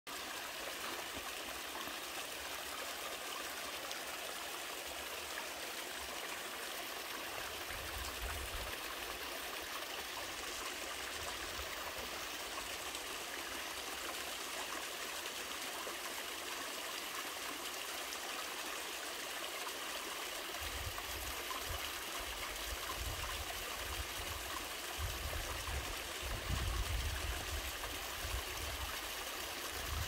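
Small mountain stream trickling and splashing down a rocky channel over boulders, a steady even rush of water. Occasional low rumbles join it, more often in the last third.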